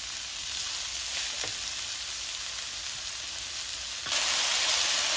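Shredded cabbage, carrot and capsicum sizzling in hot oil in a nonstick wok as they are stir-fried with a spatula. The sizzle gets suddenly louder and brighter about four seconds in.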